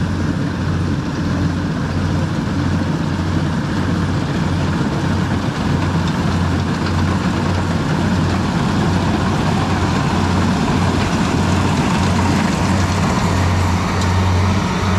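Rice combine harvester's diesel engine and cutting machinery running steadily as it works through standing rice, a low pulsing hum that grows a little louder near the end as the machine comes close.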